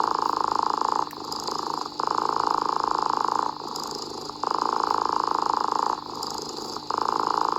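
Domestic cat purring in a steady rhythm, getting louder and softer with each breath, about three breath cycles.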